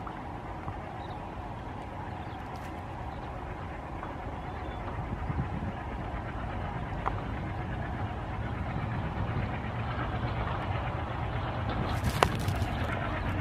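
Diesel locomotive engine running as it hauls a passenger train, a steady low rumble that slowly grows louder as the train approaches, with one sharp click near the end.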